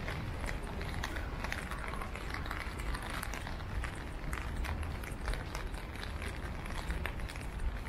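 Rainy city street ambience: a steady wash of noise with frequent small taps, from rain and footsteps on wet pavement.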